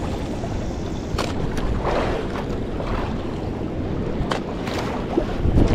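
Wind buffeting the microphone over open sea, a steady low rumble, with sea water slapping and splashing against a small outrigger boat in several short bursts.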